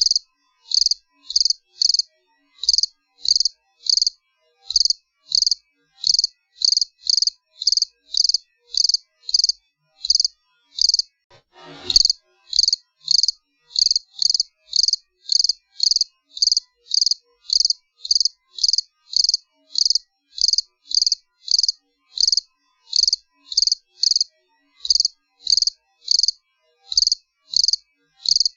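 A cricket chirping in a steady, even rhythm, about two to three short high chirps a second. A single brief click cuts in about twelve seconds in.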